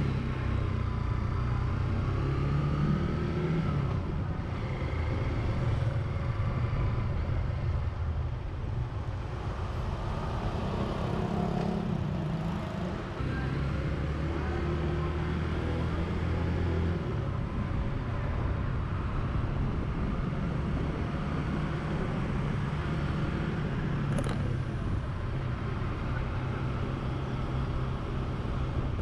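Single-cylinder engine of a Honda XR150 motorcycle running while riding through city traffic, its note shifting in steps several times as the rider changes speed. Other scooters' engines pass around it.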